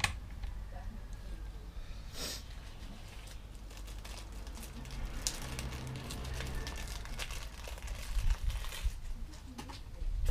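Crinkling and rustling, with scattered light clicks and knocks.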